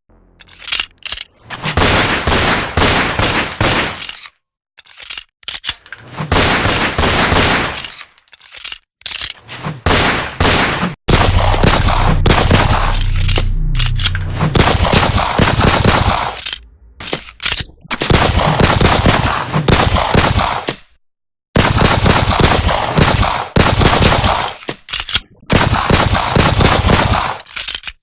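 Gunshot sound effects: single sharp shots and rapid bursts of gunfire, separated by short silences, with a long rapid run about halfway through that has a heavy low boom under it.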